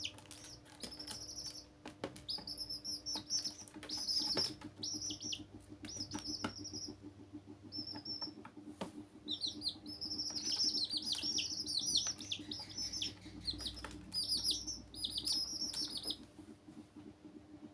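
Young chicks peeping: many short, high, falling peeps in quick runs, busiest in the second half, with a few sharp taps among them.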